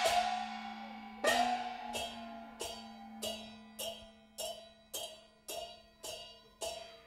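Live accompaniment for Taiwanese glove-puppet theatre. A loud ringing stroke closes a fast percussion roll, then a small gong is struck steadily, just under twice a second. Each stroke rings briefly with a slight upward slide in pitch, over a steady low held tone.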